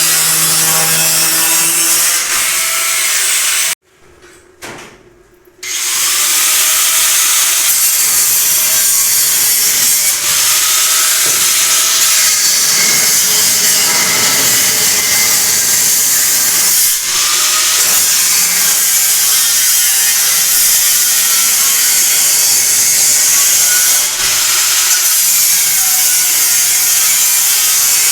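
Angle grinder cutting metal: a loud, steady hissing grind with a wavering whine. It stops about four seconds in, then starts again and runs on.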